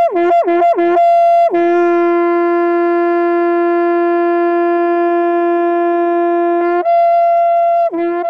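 A conch shell (shankha) blown in long notes, jumping between a high note and the note an octave below: a few quick flips, a long held low note, then back up to the high note with more quick flips near the end.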